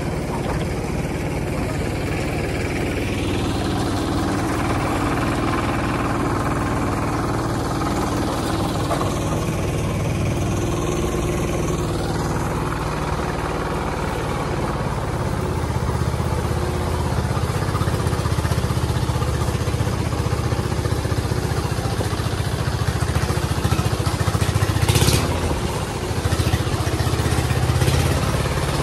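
Hand tractor's engine running steadily as it tows a loaded passenger trailer along a dirt farm road. A single sharp knock comes near the end.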